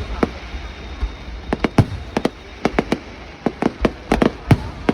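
Fireworks display bursting in a quick, irregular series of sharp bangs, some landing in close pairs and clusters.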